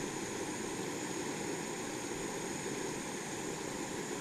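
Jetboil canister-gas stove burner running steadily under a pot of water at a full boil, making the steam that cooks the asparagus above it.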